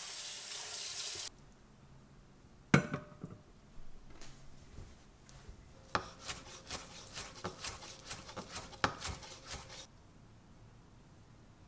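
Kitchen cooking sounds: a steady hiss that cuts off about a second in, then a sharp knock, then a few seconds of quick, light clicks and clinks of utensils on dishes.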